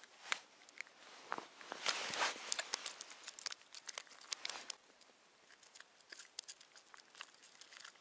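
Crinkly rustling with a quick run of small clicks and taps, densest a couple of seconds in and thinning out toward the end.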